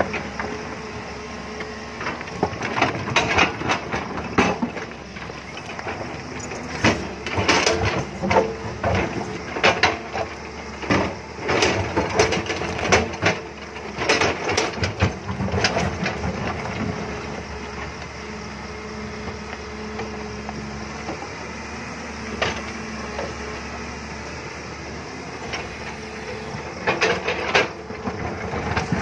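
JCB tracked excavator's diesel engine running steadily, with repeated knocks, scrapes and clatter of the bucket digging into rocky soil and stones tumbling. The clatter comes thick and fast through the first half, thins out for several seconds after the middle, and picks up again near the end.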